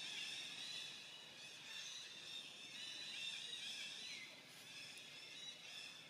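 Faint, steady high-pitched outdoor ambience, a chorus of shrill tones that hold on throughout, with a brief falling call about four seconds in.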